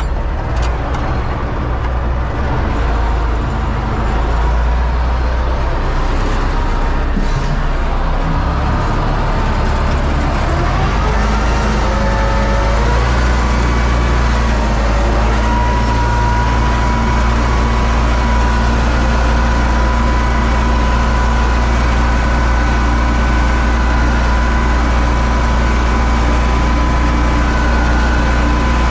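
U650 tractor's four-cylinder diesel engine running steadily at working speed while pulling a seed drill, heard from inside the cab. A steady high whine sets in about twelve seconds in.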